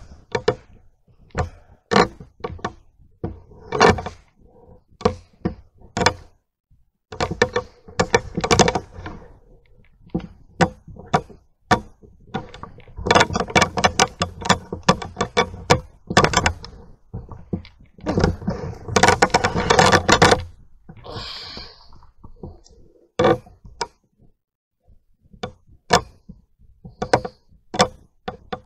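Irregular knocks and thumps, with stretches of rustling: handling noise from a hand-held camera carried while walking.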